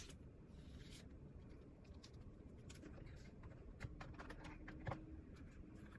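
Faint handling of Apple Watch Series 8 paper packaging: cardboard sliding and soft scrapes, with scattered light taps that gather near the end and two slightly louder knocks about four and five seconds in.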